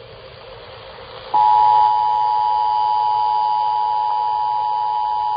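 The Emergency Alert System two-tone attention signal starts abruptly about a second in, after faint hiss, and holds steady and loud: two close pitches sounding together.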